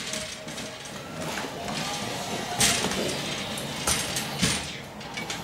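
Steel bars and frame of a hospital bed rattling and clinking as a baby squeezes out underneath, with a few sharper knocks in the second half.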